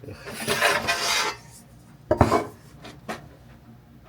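A wooden cutting board scraped across a hard work surface, then two knocks as it is set down and rocked to check whether it sits flat.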